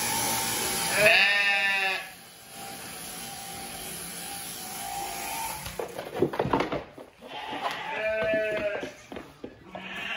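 Sheep bleating twice, short quavering bleats about a second in and again near the end. Before the first bleat ends, the electric shearing handpiece runs steadily, then stops; a few knocks and clatters of hooves and pen follow in the middle.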